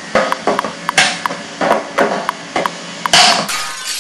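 A quick, uneven series of sharp knocks, about ten in four seconds, some with a short ring, with a brief noisy rush about three seconds in.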